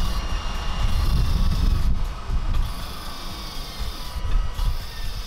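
Kokusan CS110 top-discharge basket centrifuge spinning, its faint motor whine falling slowly in pitch as the basket runs down, over a gusty low rumble.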